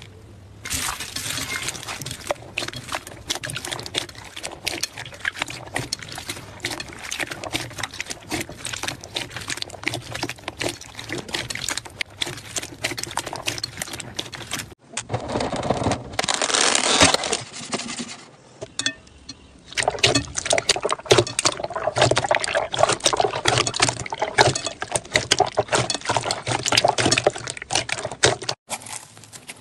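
Slime being squeezed, poked and stretched by hand, giving dense, irregular wet clicks and sticky pops. It breaks off abruptly about halfway through and again near the end, as one clip cuts to the next.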